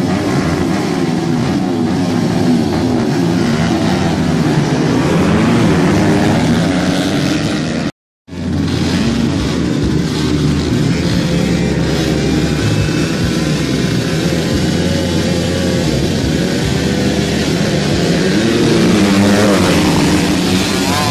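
A pack of motocross dirt bikes revving together at the start gate, many engines at once with pitches wavering up and down. The sound drops out briefly about eight seconds in. Near the end the engines climb in pitch together as the pack launches off the line.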